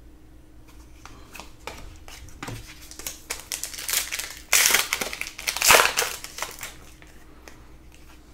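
Foil wrapper of a Panini Prizm basketball card pack crinkling as it is handled and opened, loudest a little past the middle, with light clicks of cards being handled before it.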